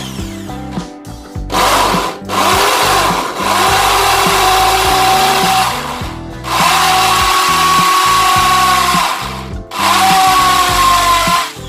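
Corded electric drill boring into a masonry wall, running at full speed with a steady whine in three or four long bursts separated by brief pauses, stopping near the end.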